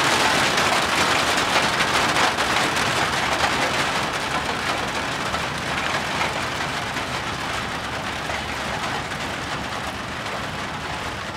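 Rain shower falling steadily, an even hiss of drops that slowly grows a little quieter.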